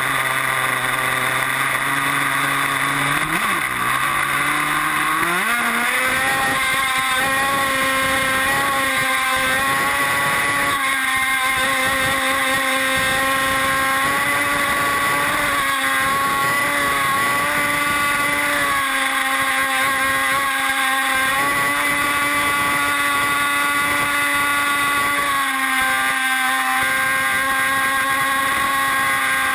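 Small two-stroke gas engine of an R42 radio-controlled boat, heard from on board. It runs low at first, dips briefly, then revs up sharply about five seconds in and holds at a steady high pitch as the boat runs at speed, with small dips in pitch now and then.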